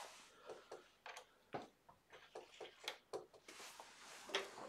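Faint scattered clicks and light metal taps of a steel pen bushing and wooden pen blank being slid onto a pen mandrel, with the lathe stopped.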